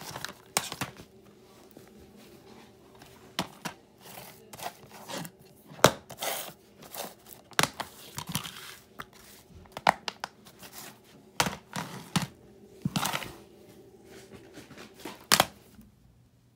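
Plastic DVD cases being handled, shuffled and set down on a wooden surface: irregular clicks, knocks and short scraping rustles.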